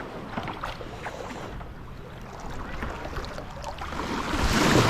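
Water splashing and lapping around a paddleboard, with small scattered splashes, then a louder rush of noise building near the end.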